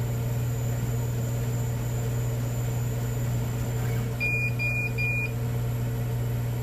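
Steady hum of a water-cooled 50 W CO2 laser engraver's pumps and fans during a run, with three short high-pitched electronic beeps about half a second apart just past the middle.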